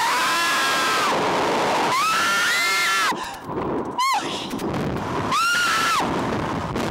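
Two riders screaming as a reverse-bungee slingshot ride flings them: three long, high-pitched screams and a short yelp near the middle, over a steady rush of air noise.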